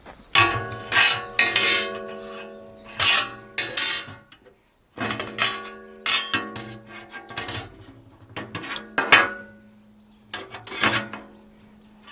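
Metal utensil clanking against metal cookware: a run of irregular strikes, each leaving a ringing tone.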